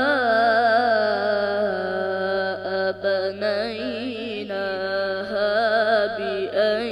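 A boy reciting the Quran in melodic tajweed style, drawing out a long, ornamented phrase with a wavering, trilling pitch and a couple of short breaths along the way.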